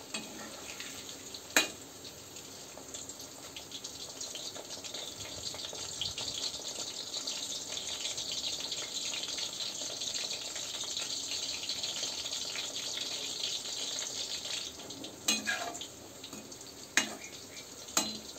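Chicken pakoras deep-frying in oil in a steel kadai: a steady sizzle and crackle that swells through the middle. A metal slotted spoon clinks against the pan about two seconds in and three times near the end.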